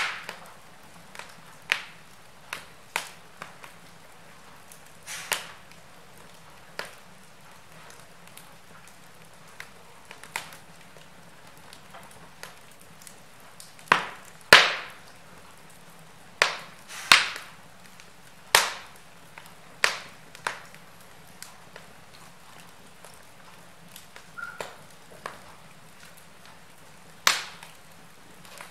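Wood fire crackling in an open fireplace: irregular sharp pops and snaps from the burning logs over a faint steady hiss. The loudest pops come about halfway through.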